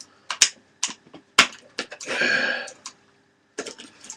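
Hard plastic packaging of a gaming mouse being pried open: several sharp clicks and snaps, the loudest about a second and a half in, then a short rustling scrape as the mouse is pulled free, with a few light clicks near the end.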